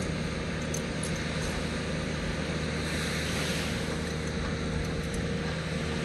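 Small waves washing onto a sandy beach, one wash swelling in about three seconds in, over a steady low hum.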